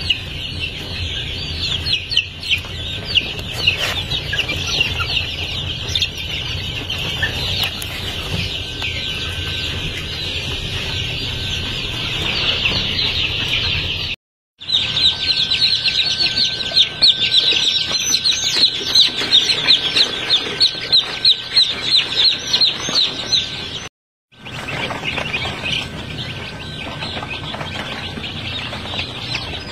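A large flock of baby gamefowl chicks peeping non-stop, a dense chorus of short, high-pitched peeps, with a faint steady whine beneath. The sound cuts out briefly twice.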